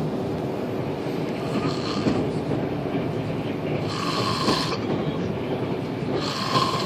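A man snoring, about three snores a couple of seconds apart with the last two loudest, over the steady running rumble of an express train carriage.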